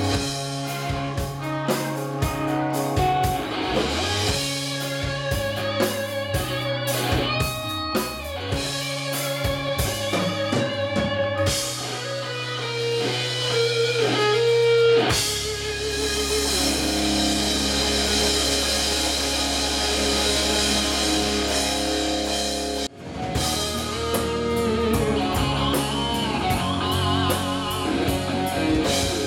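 Southern rock band playing live, with electric guitars and drums. The sound drops out for an instant about two thirds of the way through.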